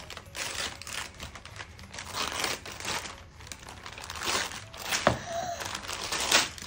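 Christmas wrapping paper being torn off a gift and crumpled by hand, in a run of rustling rips.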